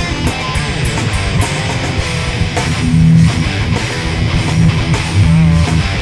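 Hard rock band playing live: electric guitar and bass guitar, with regular sharp hits throughout.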